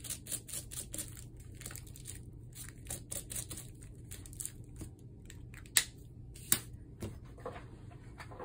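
Plastic bubble wrap crinkling and crackling as it is handled and pressed flat onto paper, a quick irregular crackle. Two sharper clicks come a little after the middle.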